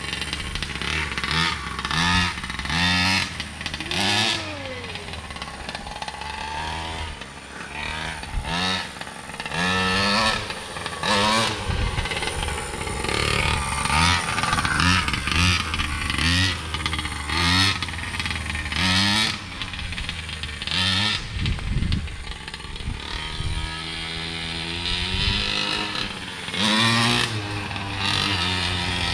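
Two-stroke gas engine of a large-scale R/C monster truck running and being throttled up and down over and over, its pitch rising and falling with each blip, while it is broken in.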